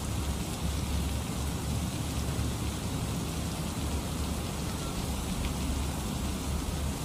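Steady rain falling: an even, unbroken hiss with a low rumble underneath.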